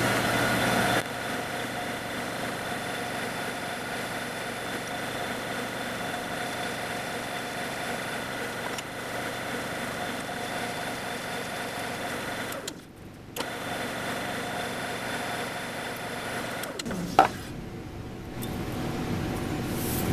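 Drill press motor running steadily while a number 21 bit drills blind holes in an aluminum plate. There is a brief break about two-thirds of the way through, then a sharp click, a quieter stretch, and the motor sound returns near the end.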